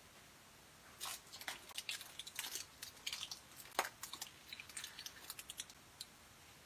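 Faint crinkling of a lozenge's wrapper being unwrapped: a run of irregular crackles from about a second in until about six seconds in.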